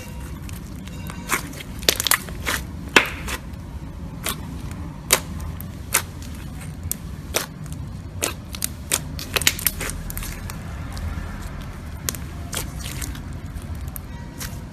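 Slime being squeezed and worked by hand, giving off irregular sharp pops and crackles, with the loudest cluster about two to three seconds in.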